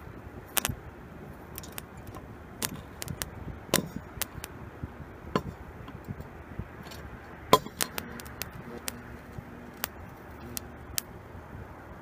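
Irregular sharp metallic clicks and snaps, about a dozen, from the copper electrode arms of a homemade microwave-transformer metal melter working against a steel nail, over a faint steady hum that comes in about two-thirds of the way through.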